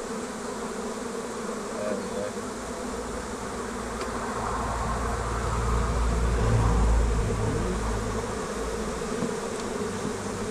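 Honey bee swarm buzzing steadily around a nuc box, the bees fanning at the entrance to call the rest of the cluster in. A low rumble swells in about four seconds in and fades a few seconds later.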